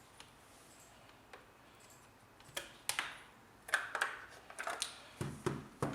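An irregular series of sharp clicks and knocks, about a dozen, starting about two and a half seconds in, with a few duller thuds among them near the end.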